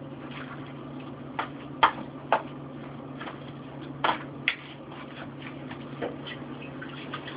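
A spoon clinking against a stainless steel mixing bowl while stirring a thick ricotta mixture: several sharp, irregular clinks, over a steady low hum.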